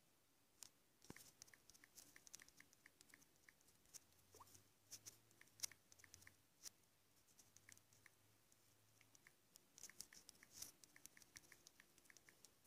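Typing on a tablet's touchscreen keyboard: quick, faint runs of fingertip taps with short clicks, in bursts of a few keys at a time.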